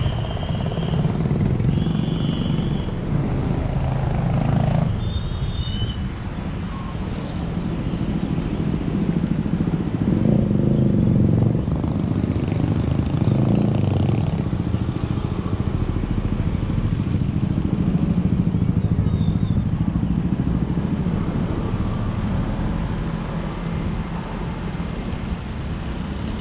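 Street traffic heard from a moving vehicle: a steady low engine and road rumble with motorbikes passing close, swelling and easing. A few short high tones sound in the first six seconds.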